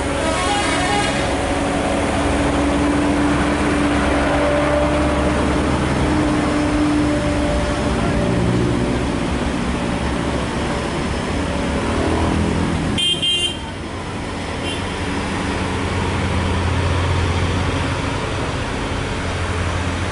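Heavy diesel dump truck engines running steadily, with a vehicle horn sounding briefly near the start.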